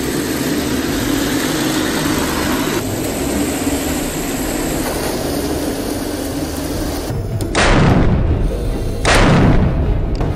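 A steady rumble, then two loud tank-cannon booms about a second and a half apart near the end, each dying away over about a second.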